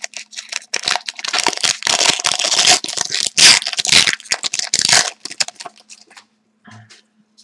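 Hockey card pack wrapper being torn open and crinkled: a dense crackling for about five seconds, thinning to a few light ticks.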